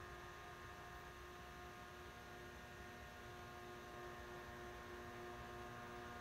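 Homemade half-bridge induction heater buzzing faintly while it is tuned into resonance: a steady hum of several pitches.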